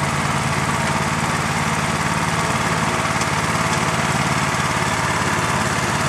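A Merry Tiller walk-behind garden tiller's small gasoline engine running steadily as the machine tills garden soil.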